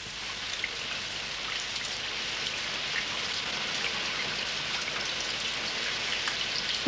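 Rain falling: a steady hiss that fades in over the first second and then holds, with scattered faint drop ticks.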